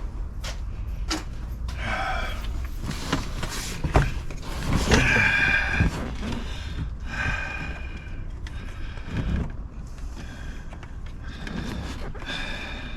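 Clicks, knocks and short squeaks of hands and tools working on plastic interior trim, with a sharp knock about four seconds in, over a low steady rumble.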